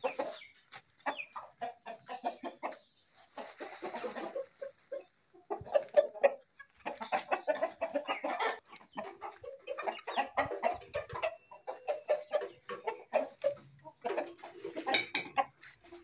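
Chickens clucking in many short, repeated calls while they feed on scattered grain. A brief rustling hiss comes about three to five seconds in.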